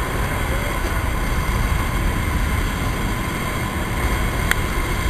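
Steady, loud drone of a jump plane's engine and airflow heard inside the cabin, with a faint steady high tone running through it. A single sharp click sounds about four and a half seconds in.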